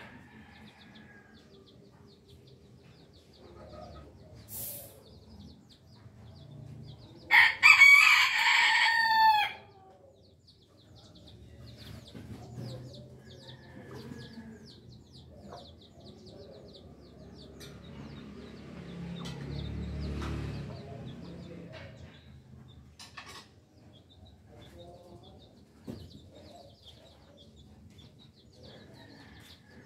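A rooster crows once, about seven seconds in, for about two seconds. Faint high chirping continues in the background.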